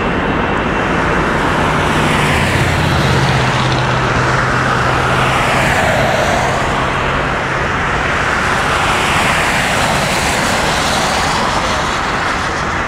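Steady rolling noise of a freight train's cars passing and moving off, easing slightly near the end.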